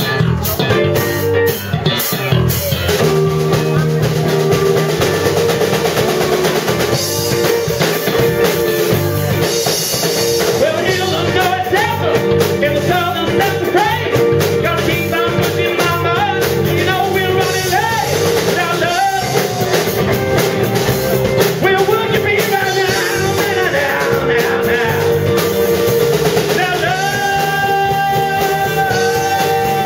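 Live rock band playing at a steady loud level: a drum kit, electric guitars and a lead singer.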